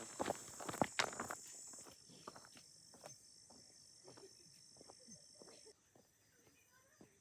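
Footsteps of hikers on a rocky trail: irregular scuffs and knocks, loudest and quickest in the first second or so, then lighter. A steady high insect buzz runs underneath and stops suddenly about six seconds in.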